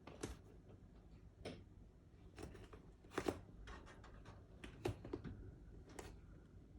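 Irregular light clicks, taps and scrapes of hand-handling heat pump fan parts during cleaning, the sharpest a little after three seconds in and again near five seconds.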